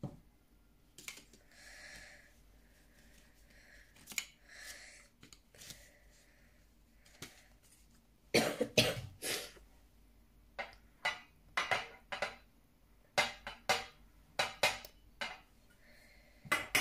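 Hands handling paper photocards and a metal tin case: a run of sharp clicks and light metallic clattering, several close together in the second half. Breathing near the start.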